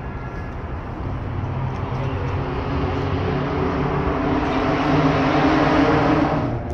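Vehicle engine rumble that swells steadily over several seconds, as of a vehicle passing close by, then cuts off abruptly near the end.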